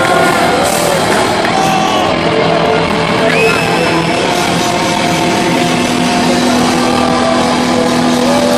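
Live rock band playing loud, led by an electric guitar holding long notes that bend and slide in pitch, heard from among the audience in a large hall.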